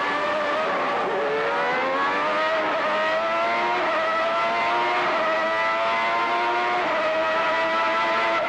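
Ferrari 3.5-litre V12 Formula 1 engine at full throttle, heard onboard. Its pitch dips briefly about a second in, climbs over the next two seconds, then holds a steady high note with a slight step near the end, over a hiss of wind and tyres.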